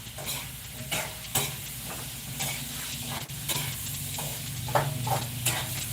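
Food sizzling in a frying pan while a cooking utensil stirs and scrapes it, giving irregular sharp clicks of metal against the pan over a steady low hum.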